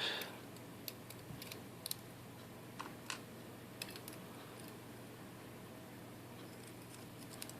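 Faint, scattered small metal clicks of tweezers picking the pins out of a gutted Mul-T-Lock cylinder, most of them in the first four seconds.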